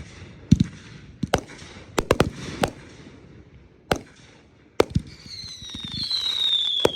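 Consumer fireworks going off: a scattered series of sharp bangs and booms, then near the end a rising hiss with a whistle that slides down in pitch.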